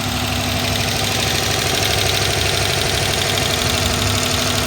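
2011 Dodge Charger PPV's 5.7-litre V8 idling rough, with a steady tapping, clacking noise that seems to come from the top of the engine and a steady misfire.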